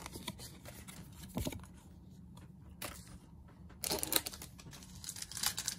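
Foil Pokémon booster pack wrappers crinkling and rustling as packs are handled and opened, with a soft knock about a second and a half in and a louder burst of crinkling about four seconds in.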